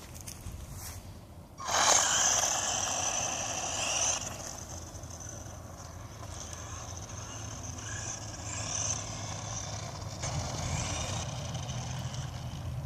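Remote-control truck driving: its small electric motor whines high over the noise of its tyres on the ground. It starts suddenly about two seconds in, is loudest for a couple of seconds, then carries on a little quieter.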